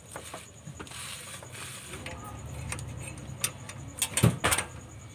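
Small metallic clicks and taps from hands working the terminal nut and rubber boot on a multicab's starter solenoid, with a quick cluster of sharper clicks about four seconds in. A low hum sits underneath for most of it.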